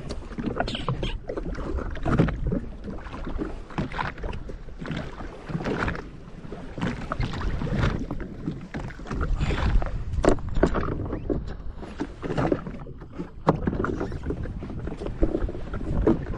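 Small waves slapping and splashing irregularly against the hull of a drifting jet ski, over a low rumble of wind on the microphone.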